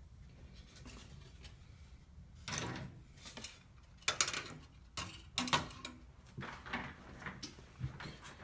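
A string of irregular clicks, knocks and short rustles from objects being handled, starting about two and a half seconds in.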